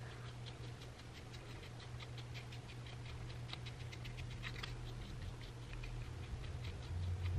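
Plastic spatula scraping depilatory cream and hair off the skin of an armpit: a quick run of faint, short scratchy strokes, several a second.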